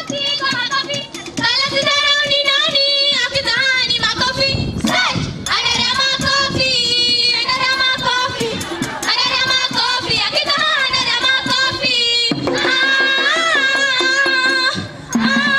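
Group of girls singing a traditional song in chorus, in wavering phrases, over a percussive beat.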